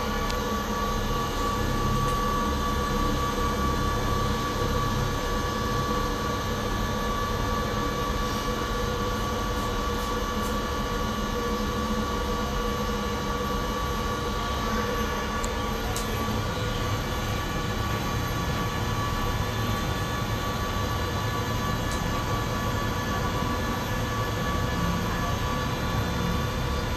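Steady hum and rumble heard inside a moving cable car cabin as it travels along the cable, with a few steady tones running through it and an occasional faint click.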